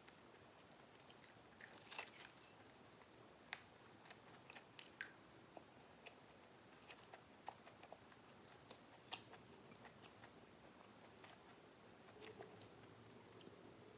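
Close-miked eating: soft chewing and biting, with scattered sharp little clicks and crunches, the strongest about two seconds in.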